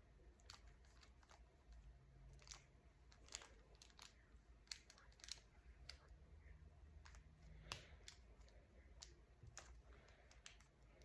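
Faint, irregular clicks and clacks of a Rubik's cube's layers being turned by hand.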